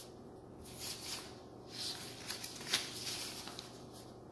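Faint rustling and scuffing, with a sharper tick a little under three seconds in, over a low steady hum.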